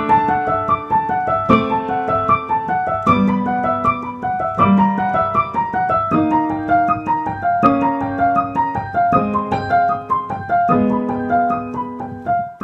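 Piano music: a repeating pattern of notes over chords that change about every second and a half.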